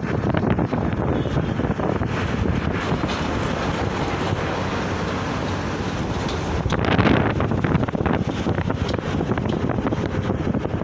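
Wind buffeting the microphone over a steady rumble of road traffic, louder for a moment about seven seconds in.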